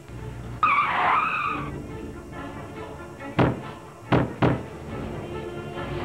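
A tire-screech sound effect lasting about a second, then three sharp thuds, the last two close together, over background music.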